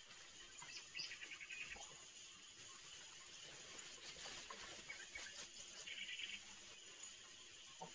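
Faint insects chirping, with short trills about a second in and again near six seconds, over a low steady background hiss.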